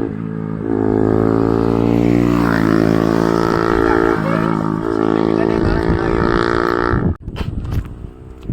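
Bajaj Pulsar NS200's single-cylinder engine through an SC Project full-system exhaust, running loud under throttle with its pitch stepping down and back up several times. About seven seconds in the sound drops off sharply, leaving a few clicks.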